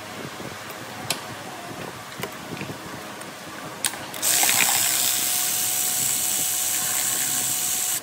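Scattered metallic tool clicks, then about four seconds in a loud, steady hiss with a faint steady whine starts and cuts off abruptly.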